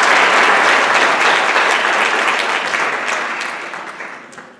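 Auditorium audience applauding, loud at first, then thinning and dying away near the end.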